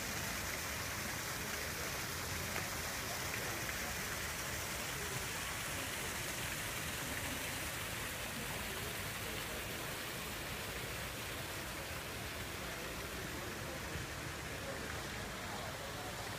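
Water splashing steadily into the basin of the Fountain of the Four Rivers, as an even rushing hiss, with a murmur of voices from people in the square. The splashing grows a little fainter near the end.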